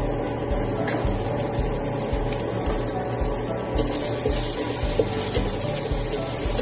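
Diced hotdog and ham sizzling in a nonstick frying pan, the hiss growing louder about four seconds in as a spatula starts stirring and scraping it. Background music with a steady low beat plays underneath.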